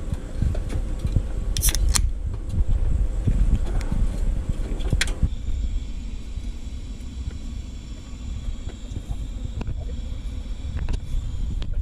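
Knocks and rumble of the camera being moved during the first five seconds, then the steady buzzing hiss of an electric welding arc as a radiator mount bracket is welded.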